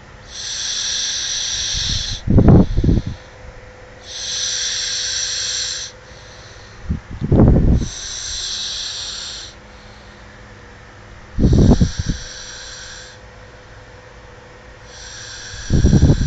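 Snoring in a steady cycle, about every four to five seconds: a long hissing breath, then a short, loud, low snore.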